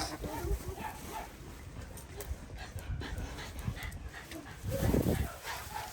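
Dogs whimpering with short, faint barks, and one louder, low sound about five seconds in.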